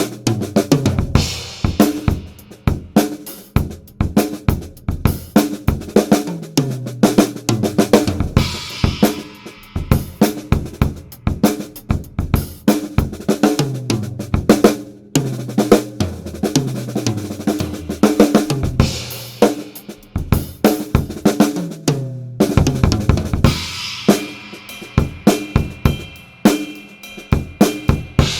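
Acoustic drum kit played in a steady groove of kick, snare and hi-hat, recorded dry through a Yamaha EAD10's kit-mounted microphone with no reverb or compression. Several tom fills run down in pitch, and crash cymbal washes come in about a third of the way through and again near the end.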